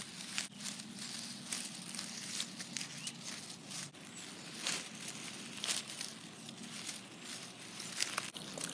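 Irregular rustling and crackling of grass and dry leaves as a toy horse is pushed through them, with scattered sharper crackles.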